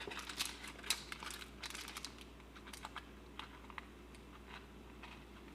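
Foil wrapper of a Pokémon TCG booster pack crinkling and crackling in the hands as it is worked at to tear it open against a tight seal. The crackles come thick at first, then thin out.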